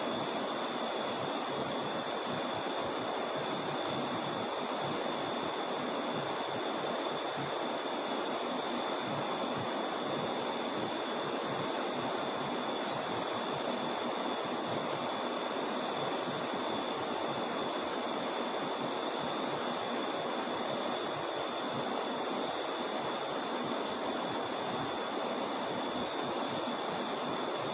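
River water flowing and rushing steadily in a river swollen after a flood, with a few steady high-pitched tones over it.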